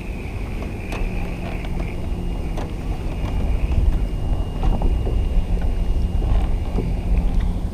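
Steady low hum of a boat's electric trolling motor, with wind rumbling on the microphone and scattered faint clicks.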